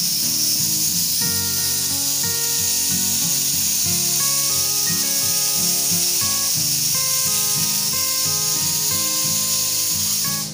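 Loud steady hiss of pressurised gas escaping through a service hose at a split-type air conditioner's indoor unit, cutting off suddenly at the end. Background guitar music plays underneath.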